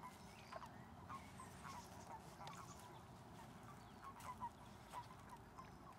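Faint, short animal calls, many of them at irregular intervals, over a near-quiet background.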